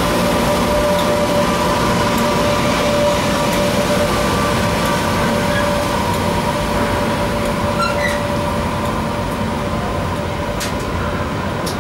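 Freightliner Class 86 AC electric locomotives running past at speed with a container train: a steady motor whine over the rumble of wheels on rail. The sound eases a little as the locomotives draw away and the container wagons roll by, with a few sharp clicks near the end.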